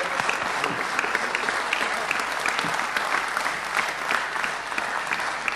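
Applause from the deputies of a legislative chamber: many people clapping together after a speech, easing off slightly near the end.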